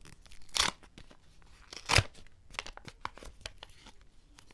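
A small paper packet being torn open by hand: two loud rips, about half a second and two seconds in, with crinkling and small crackles of the paper between them.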